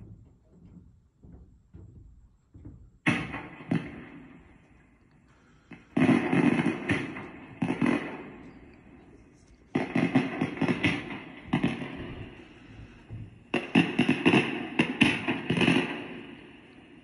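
Firework sound effects from the LED firework projector's small built-in speaker: four bursts about three to four seconds apart, each starting suddenly and crackling as it fades.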